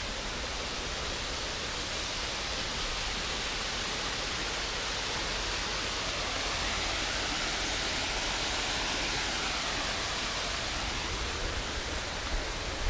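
Steady rushing of a swollen, fast-flowing river in flood, an even hiss without breaks.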